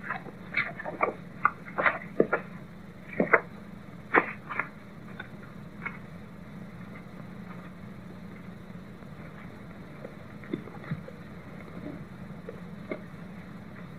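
Steady low hum and hiss of an old black-and-white film soundtrack, with a scattering of short, light knocks and rustles in the first few seconds and a few fainter ones later.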